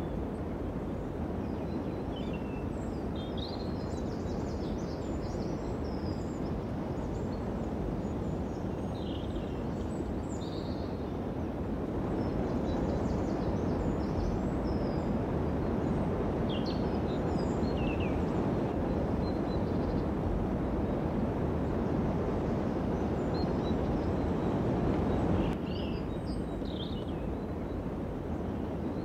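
Steady outdoor background noise with scattered short bird chirps and calls. The background gets a little louder about twelve seconds in and drops suddenly about three and a half seconds before the end.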